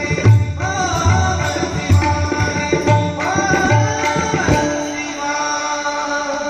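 Marathi gaulan devotional song: a singing voice over steady pakhawaj and tabla strokes. About four and a half seconds in the drums drop out and a held note carries on.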